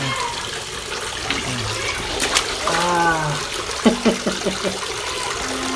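Steady running and splashing water, with a brief pitched, voice-like hum about three seconds in.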